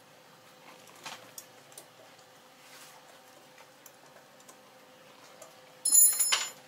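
Hand tools being handled on metal fittings: scattered light clicks and taps, then about six seconds in a loud metallic clink that rings briefly.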